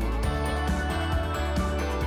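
Instrumental background music: sustained pitched notes over a bass line that changes note every half second or so.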